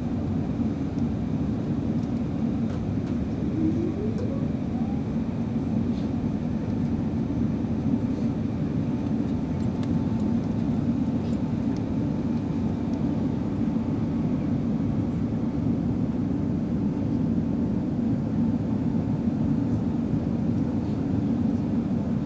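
Airliner cabin noise: a steady, loud, low rumble of engines and airflow. A faint whine rises about four seconds in and then holds steady.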